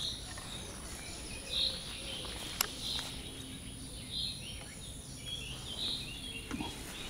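A bird repeating a short, high chirp roughly every second and a half over steady background noise, with one sharp click about two and a half seconds in.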